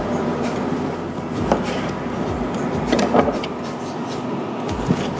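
A kitchen knife slicing a roll of pastry dough on a plastic cutting board, giving a few soft knocks, about one every second or two, over a steady hum of background noise.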